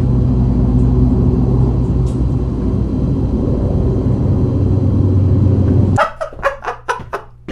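Loud, steady low rumble with a hum, cut off suddenly about six seconds in, followed by a few short, quiet sounds.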